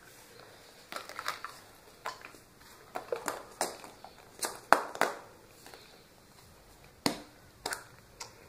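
Irregular sharp clicks and crackles of surprise eggs and candy being handled and opened, with about a dozen snaps and rustles, the loudest clustered in the middle.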